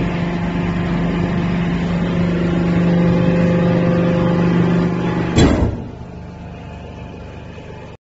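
Hydraulic power unit of a waste-paper baler running with a steady loud hum, then a sudden loud clunk about five and a half seconds in, after which the machine runs on more quietly.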